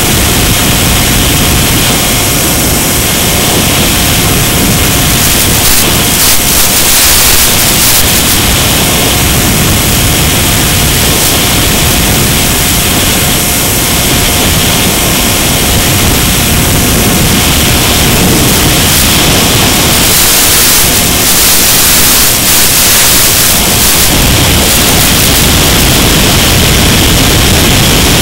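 A loud, steady hiss during the flight of a Mini Skywalker RC plane, with a faint steady whine under it; the hiss swells briefly a few times.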